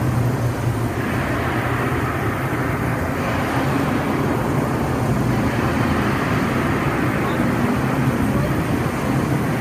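Steady rush of artificial rain pouring down into a shallow pool, a continuous even hiss and splash.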